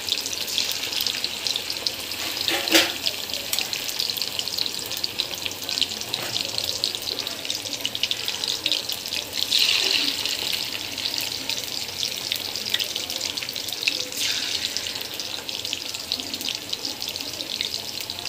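Batter-coated chicken 65 pieces deep-frying in hot oil in a kadai: a steady, dense crackling sizzle, with a short knock about three seconds in.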